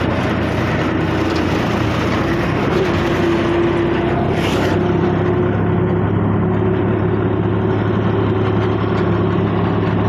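Farm tractor's diesel engine running steadily under load while it pulls a trailer heaped with harvested wheat, heard up close from the tractor.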